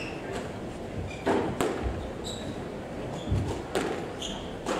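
Squash rally: a few sharp cracks of the ball striking racquets and the walls of a glass-backed court, with short high squeaks of court shoes on the wooden floor and some dull thuds of footsteps.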